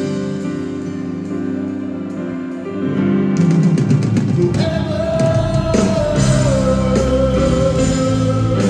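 Live ballad with band accompaniment. About three seconds in, the fuller band with drums comes in, and from about halfway a male singer holds one long note.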